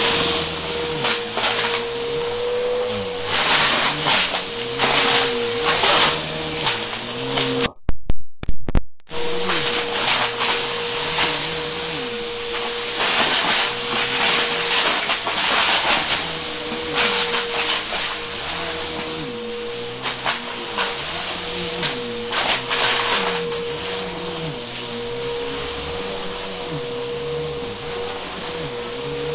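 Bissell bagless upright vacuum cleaner running with a steady motor whine as it is pushed back and forth over carpet. Gritty debris crunches and crackles as it is sucked up, in bursts every few seconds. The sound breaks off briefly about eight seconds in.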